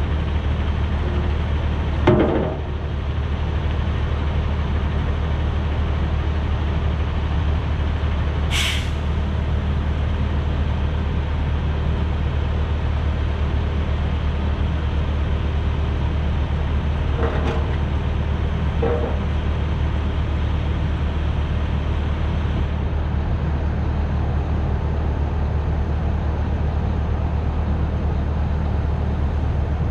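Heavy diesel truck engine idling steadily. About nine seconds in there is a short burst of hissing air typical of truck air brakes. There is a sharp knock about two seconds in and two fainter knocks around the middle.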